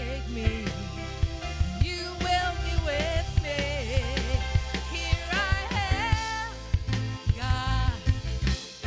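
Gospel worship song: a singer's voice with wavering held notes over keyboard and a drum kit.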